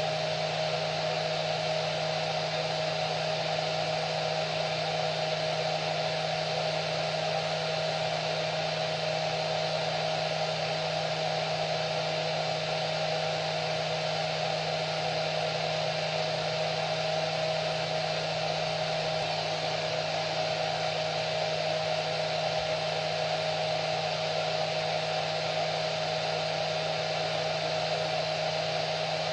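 Hair dryer running steadily: an even rush of air with a constant motor hum, unchanging throughout.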